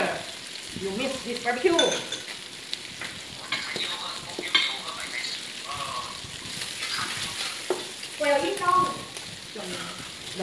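Meat sizzling on an electric tabletop grill pan, a steady frying hiss, with light clicks and scrapes of chopsticks turning the pieces. A couple of short voice sounds come through, about a second and a half in and again around eight and a half seconds.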